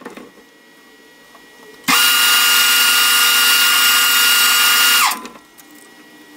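Small metal lathe run briefly for a short cutting pass. It starts abruptly about two seconds in with a steady whine over loud noise, runs for about three seconds, then is switched off, and its pitch falls as it winds down.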